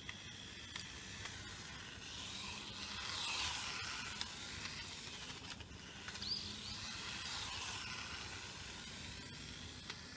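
Mini 1:28 RC car (WLtoys K989 chassis) running on asphalt, its small electric motor and tyres making a hissing whir that swells and fades twice as it comes and goes. A brief high chirp sounds about six seconds in.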